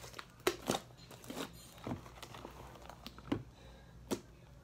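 Wet, very sticky and stretchy slime being squeezed and pulled apart in the hands, giving about half a dozen irregular sticky pops and squelches.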